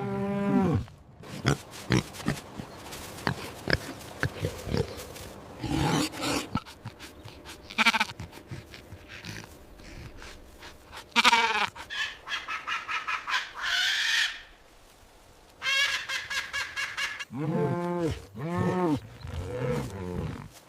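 A string of recorded farm-animal calls, chiefly a pig grunting and squealing, with other livestock calls near the end.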